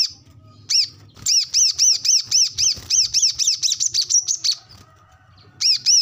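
Male brown-throated sunbird (kolibri kelapa) singing its fast chattering song: a run of sharp, high rising-and-falling notes, about four to five a second. The song breaks off about halfway through and starts again near the end.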